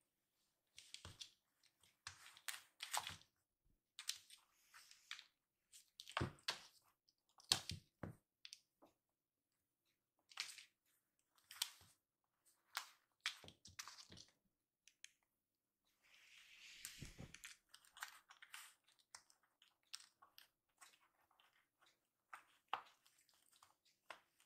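Kittens play-fighting on a floor mat and a pair of woven-bamboo slippers: faint scattered scuffs, claw scratches and rustles as they tumble and bite, with one longer rustle and soft thud about two-thirds of the way through.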